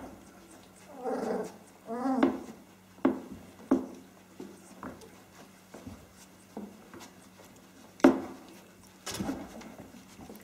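Australian Kelpie puppies about three weeks old play-fighting: small growling sounds, with a quick pulsing run about two seconds in and several short, sharp yelps spread through.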